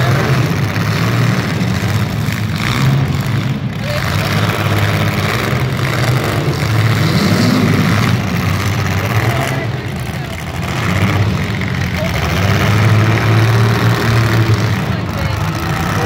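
Compact demolition derby cars' engines running hard and revving as the cars shove against each other, with one rev rising and falling about seven seconds in. Spectators' voices are mixed in.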